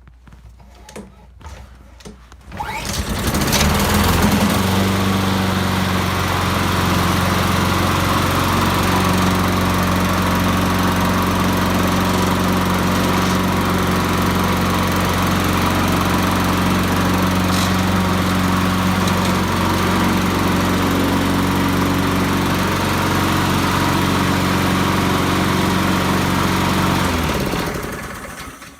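Honda HRR216 lawnmower's single-cylinder four-stroke engine cold-starting at −8 °C. A few brief clicks, then the engine catches about two and a half seconds in and runs evenly for over twenty seconds. Near the end it is shut off and winds down.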